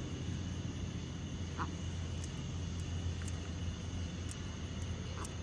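Ducks quacking faintly, twice: once about a second and a half in and again near the end, over a steady low background rumble.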